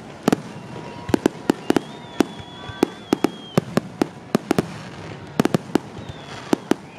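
Aerial fireworks shells bursting in rapid, irregular succession: many sharp bangs, several close together, over a continuous background rumble and hiss.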